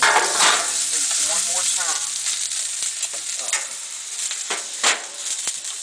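Food sizzling on a Blackstone gas flat-top griddle, a steady frying hiss that is loudest in the first couple of seconds. A few sharp knocks come near the end.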